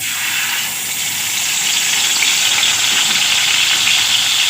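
Poppy-seed paste sizzling in hot refined oil in a kadai. It is a steady, loud sizzle that starts suddenly and grows a little louder.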